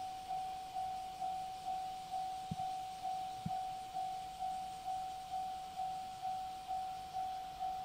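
Japanese level-crossing warning bell ringing, a single electronic tone struck about twice a second, each strike fading before the next: the crossing signal warning of an approaching train. Two soft low knocks come near the middle.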